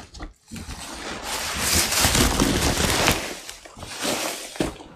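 Chopped, damp forage rustling and crunching as it is scooped up by gloved hands. The rustling is steady for the first few seconds, then breaks into separate crunches.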